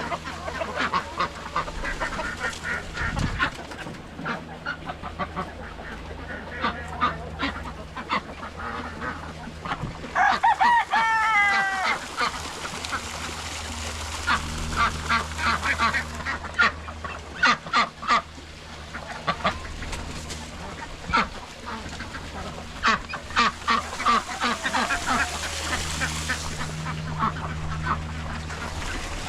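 Backyard poultry flock of chickens and ducks calling: scattered clucks, honking quacks throughout, and a loud run of quacks about ten to twelve seconds in, over a steady low hum.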